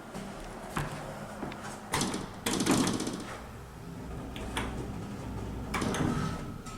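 Otis Gen2 lift's sliding doors operating, with several clunks and knocks, the loudest about two to three seconds in and another near the end, over a steady low hum.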